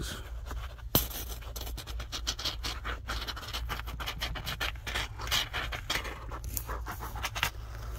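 A can of expanding spray-foam insulation being dispensed into a gap, with an irregular crackling, scratchy sputter. There is one sharp click about a second in.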